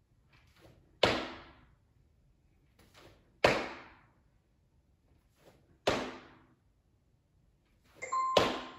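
Sneakered feet landing from jump squats on a hard floor: four heavy thuds about two and a half seconds apart, each ringing out briefly in the room, with lighter footfalls from the pulses between them. A short electronic beep sounds just before the last landing, near the end.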